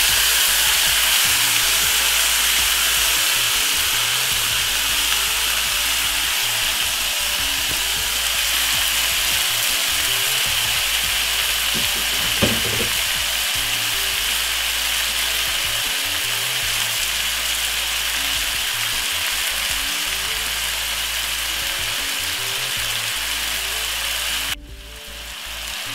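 Marinated chicken pieces sizzling in a hot pot, a steady frying hiss that slowly eases off, with a single light knock about halfway through; the hiss cuts off suddenly near the end.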